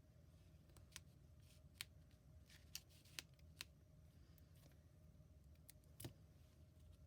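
Near silence with a low steady hum, broken by a handful of faint, sharp clicks and taps as paper card pieces and adhesives are handled.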